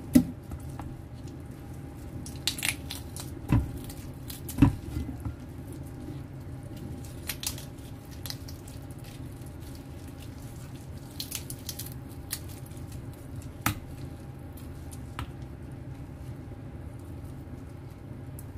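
Boiled, chilled chicken thighs being skinned and pulled apart by gloved hands in a stainless steel bowl: soft wet squishing and tearing of skin and meat. Scattered sharp knocks and clicks against the bowl are loudest just after the start and about four and a half seconds in, over a steady low hum.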